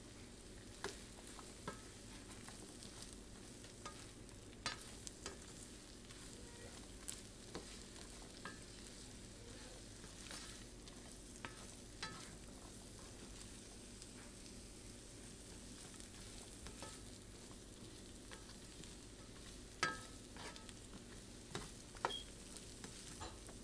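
Shrimp and asparagus sizzling in a frying pan as they are stir-fried, with a steady low sizzle and the spatula scraping and clicking against the pan every few seconds, the sharpest clicks near the end.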